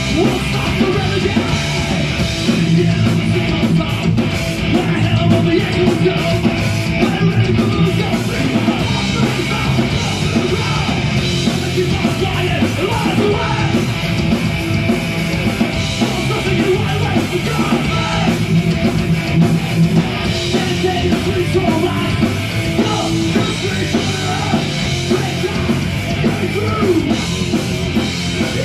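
Heavy rock band playing live, with electric guitar, drum kit and shouted vocals, without a break.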